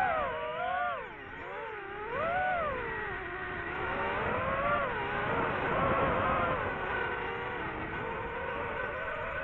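DJI FPV drone's motors and propellers whining in flight, the pitch dipping and rising sharply several times in the first three seconds as the throttle is worked, then holding a steadier, gently wavering whine.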